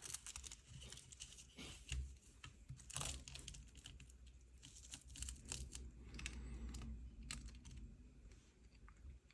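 Faint handling noise: scattered light clicks and taps with crinkling and tearing of packaging, as a drone battery is unpacked by hand.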